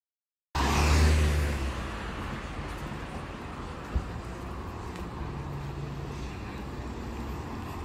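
Street traffic noise: a vehicle passes loudly near the start, then a steady traffic hum with a low engine drone, broken by one sharp click about four seconds in.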